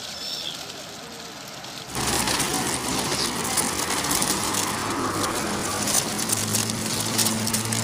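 A motor hum under a rush of noise, starting suddenly about two seconds in and growing stronger towards the end.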